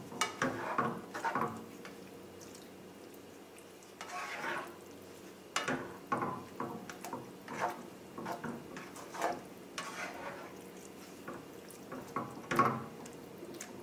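Slotted spatula stirring and scraping a thick, chunky tomato sauce in a skillet: irregular wet scrapes and squelches, a dozen or so strokes spread unevenly through the stirring.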